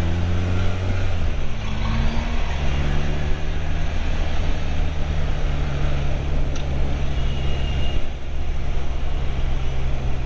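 Motorcycle engine running under way, with wind noise over it. The revs dip briefly about a second in, then pick up again and hold steady.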